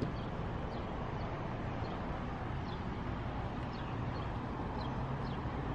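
Steady outdoor background noise with a low hum, and faint short bird chirps repeating every half second or so.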